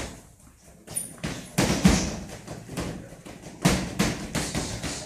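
Boxing gloves landing punches during a sparring session: a run of sharp slaps and thuds at irregular intervals. The loudest come about two seconds in and just before four seconds, after a quieter first second.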